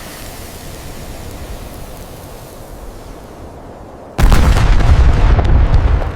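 Explosion sound effect: a steady rushing rumble for about four seconds, then a sudden, much louder blast with a deep boom and crackling that carries on past the end.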